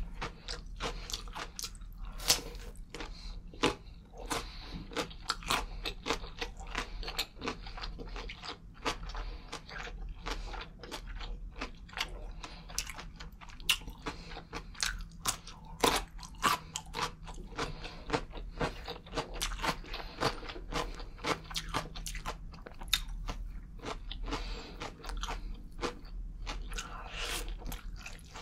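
Close-miked eating sounds: crunchy bites into a pickle and wet chewing of parma ham, with a dense run of sharp crunches and mouth clicks.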